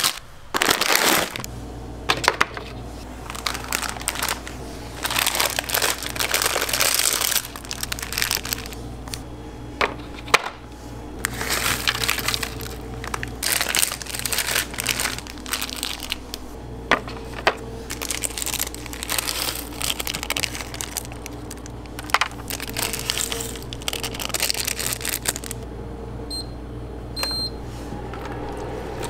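Plastic instant-ramen packet crinkling in repeated bursts as it is handled and torn open, with a few sharp clicks, over a steady low hum. Short electronic beeps near the end.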